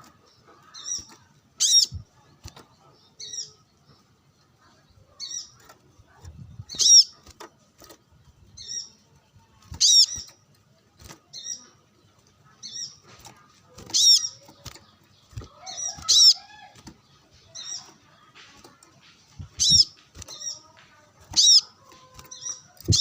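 Brown-throated sunbird calling in full voice: short, sharp, high chirps, a loud one every two to four seconds with quieter chirps between.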